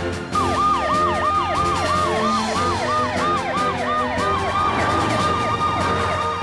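Cartoon police car and ambulance sirens: a fast siren that sweeps down in pitch about three times a second, with a slower wailing siren that dips and rises again near the middle.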